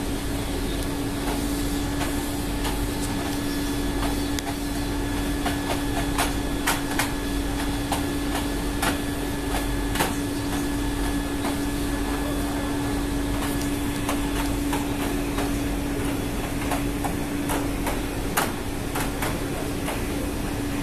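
Steady machinery hum: a constant drone with one strong held tone over a low rumble, with scattered sharp clicks and knocks, the loudest about ten seconds in and again near the end.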